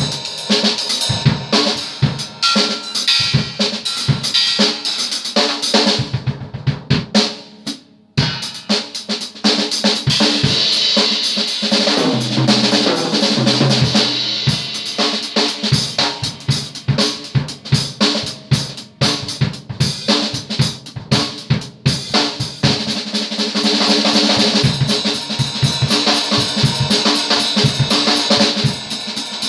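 Drum kit played fast and busy, snare, toms and bass drum under ringing cymbals, with a brief break about seven seconds in. The metallic wash builds up in the middle and again near the end.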